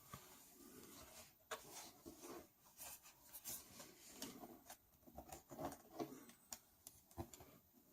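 Faint, irregular plastic clicks, taps and soft scraping as a tablet with a keyboard dock is handled and opened up.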